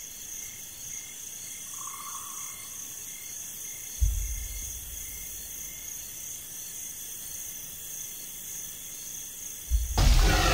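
Crickets chirping steadily, about three chirps a second. A single low thud comes about four seconds in, and a loud deep rumble starts just before the end.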